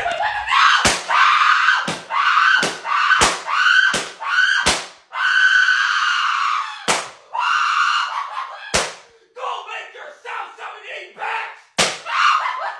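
A man screaming in a high, strained voice, broken by about nine sharp smacks, most of them in quick succession in the first five seconds. The screaming turns quieter and choppier near the end.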